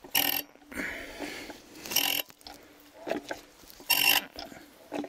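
Diesel injector from a Sofim 8140 engine being pop-tested on a hand-lever injector tester: it fires three short, sharp spray bursts about two seconds apart as the lever is pumped, with quieter knocks between. This third injector seems to spray normally.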